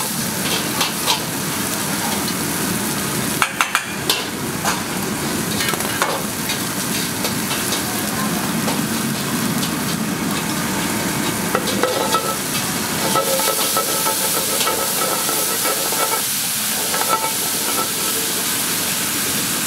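Diced beef and garlic sizzling in an oiled frying pan over a gas wok burner, steady throughout, with a few sharp clicks a few seconds in and again around six seconds.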